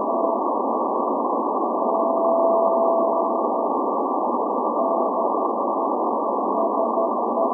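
Morse code from the SVO Athens maritime coast station's channel marker on 8424 kHz, received in CW mode on shortwave: a steady tone of about 700 Hz keyed on and off over a dense hiss of band noise, cut off above and below by a narrow receiver filter. The tone is keyed in short elements at the start, holds unbroken for nearly two seconds in the middle, and is keyed in short elements again near the end.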